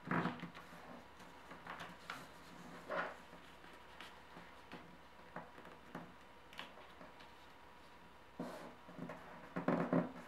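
Origami paper being handled, folded and creased by hand: scattered short rustles and crease strokes, busiest near the end.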